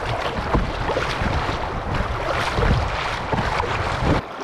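Water rushing and splashing around a kayak being paddled through riffles, with wind buffeting the microphone in low rumbles. The sound drops off suddenly near the end.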